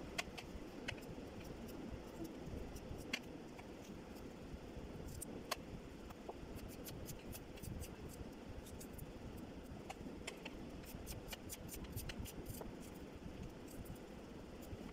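Light clicks and taps of raw potato sticks being handled in a steel tray, in quick clusters through the middle of the stretch, over a steady low background hum.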